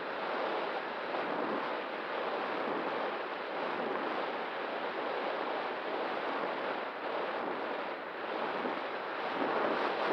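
Steady rushing wind noise buffeting the microphone, with a faint steady tone underneath.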